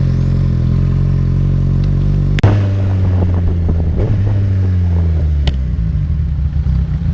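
Kawasaki Z1000's inline-four engine running steadily as the motorcycle is ridden. A sharp click comes about two and a half seconds in, where the engine note changes, and a smaller click near the end.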